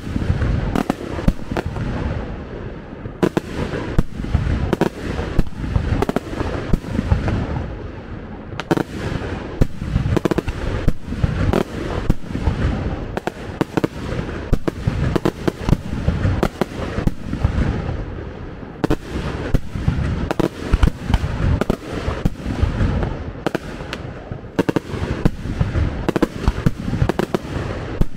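Fireworks display: a dense, unbroken barrage of bangs, several a second, over a constant low rumble and crackle.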